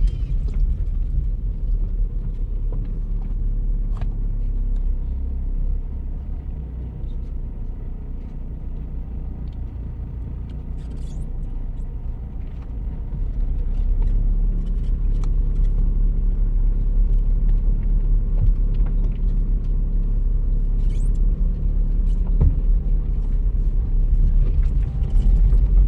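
A car driving: a steady low rumble that eases off a little a few seconds in and grows louder again about halfway through, with a few faint clicks.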